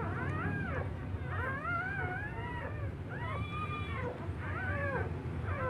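Newborn Labrador puppies crying: a quick run of high, mewing cries that rise and fall in pitch, one after another. A steady low hum runs underneath.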